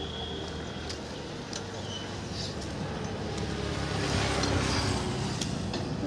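A motor vehicle engine running with a low rumble that swells about four seconds in, with a few light clicks over it.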